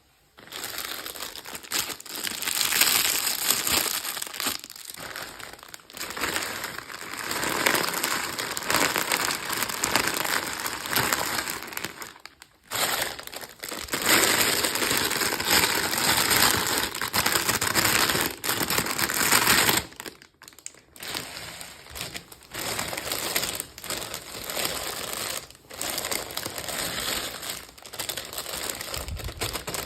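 Plastic packaging crinkling and crackling as it is handled and torn open, in long stretches with a couple of short pauses.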